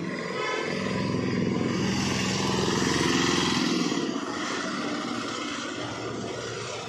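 A passing motor vehicle's engine, growing louder and then fading away over a few seconds.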